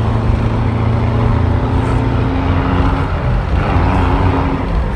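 Bus engine running under way, heard from inside the cabin with road noise; the low engine note shifts about two seconds in and again near four seconds.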